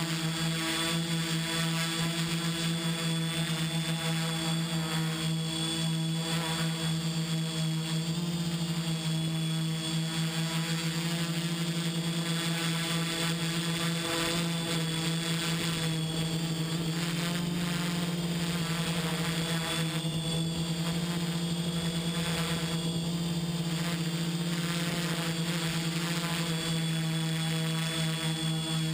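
XAircraft X650 V4 quadcopter's brushless motors and propellers buzzing steadily in flight, heard from the camera mounted on the craft, with a high whine over a low hum whose pitch wavers slightly.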